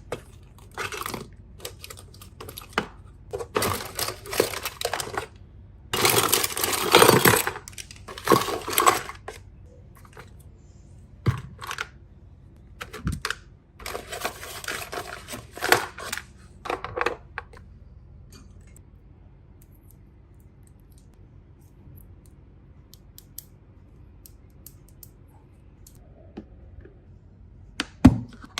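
Small plastic toy pieces being handled, clicking and clattering in bursts, then a long quiet stretch with only faint ticks before a few more clicks near the end.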